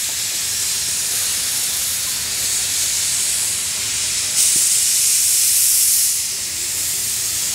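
C62 2 steam locomotive venting steam from its open cylinder drain cocks as it moves slowly, a steady hiss that grows louder for a little under two seconds about halfway through.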